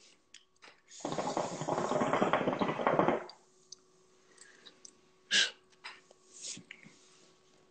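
Hookah water bubbling for about two seconds as smoke is drawn through the hose, then a faint exhale and a short, sharp puff of breath about five seconds in.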